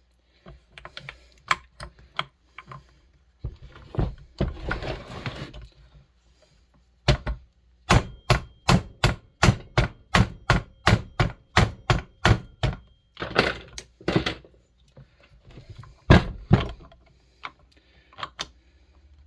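Hand hammering on a chainsaw piston's wrist pin to drive it out: scattered knocks, then a fast run of about a dozen blows at two or three a second, and two louder blows later. The pin is stuck fast and coming out only slowly.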